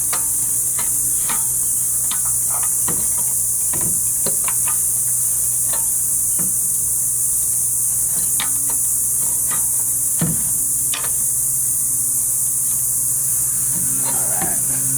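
Scattered, irregular light metallic clinks and knocks as a turbocharger is angled and lined up into place in an engine bay, over a steady high hiss and a low hum.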